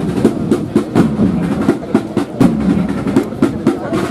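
Procession band's drums playing a marching beat, a quick run of sharp strokes several times a second, with the brass silent.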